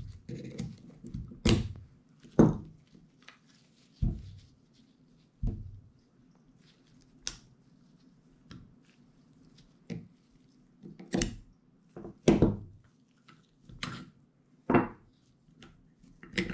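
Scattered, irregular metal clicks and knocks as a Husqvarna TE150 front brake caliper is handled and its pad pin, clip and brake pads are worked out with needle-nose pliers.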